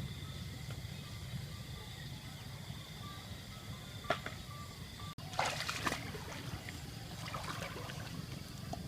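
Water splashing and trickling in shallow floodwater, with a burst of splashing about five seconds in, over a steady low rumble. A single sharp click comes just before the splashing.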